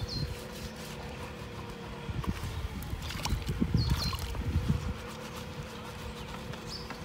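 Water splashing in a shallow stream as a wet, soapy sack is scrubbed against the legs, in irregular bursts about two to five seconds in.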